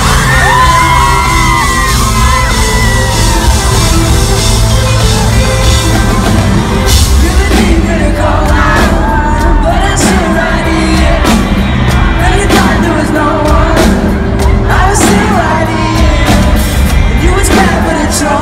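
Live pop-rock band playing loud in a large hall: electric guitar, bass and drums with a lead vocal, fans yelling and whooping over it. The drums hit harder with cymbal crashes from about a third of the way in.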